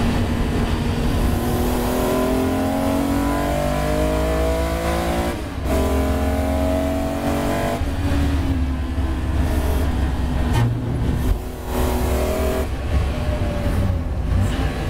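BMW M3 race car engine heard from inside the cockpit under hard acceleration. Its pitch rises through the gears, with quick upshifts about five and a half and eight seconds in. Later it lifts off and drops in pitch as the car brakes.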